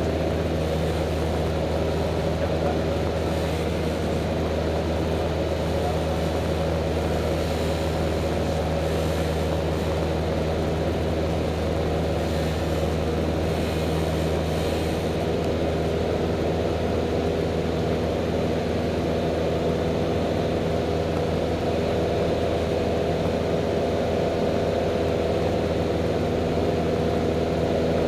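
Single-engine light aircraft's piston engine and propeller droning steadily in flight, heard inside the cabin.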